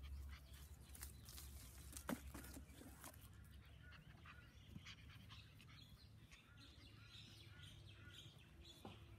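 Near silence: faint outdoor background with scattered soft ticks and clicks, the sharpest about two seconds in.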